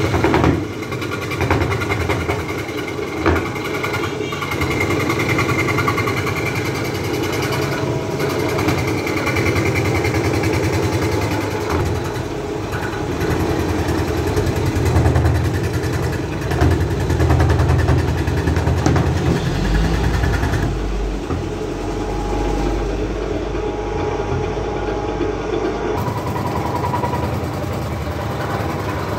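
Motor-driven scroll saw running and cutting through thick softwood: a steady mechanical hum with the blade's rapid chatter and a few short clicks early on. For several seconds about two-thirds through, the sound turns deeper and duller.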